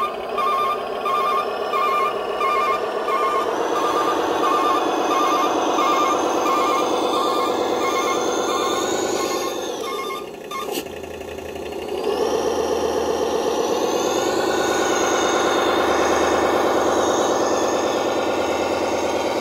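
RC model truck's sound unit playing a simulated diesel engine, with its reversing beeper sounding about three beeps every two seconds for the first few seconds. The engine note drops and fades about ten seconds in, then picks up again and runs steadily from about twelve seconds in.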